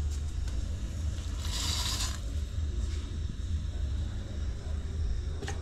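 Dry rice grains poured from a cup into a pot of water give a brief rushing hiss about a second and a half in, over a steady low rumble.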